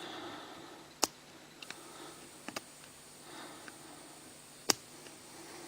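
Small sharp clicks and taps of metal tools and parts against a lock being taken apart: two louder clicks, about a second in and near the end, with a few faint ticks between.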